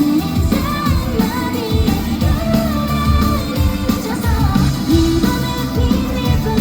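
Live pop-rock band playing a song with electric guitars, bass and drums under a sung lead vocal.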